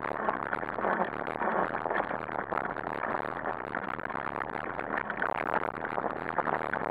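Continuous rattle and rumble of a dog-drawn rig rolling fast over a rough dirt trail, heard through a camera mounted on the rig.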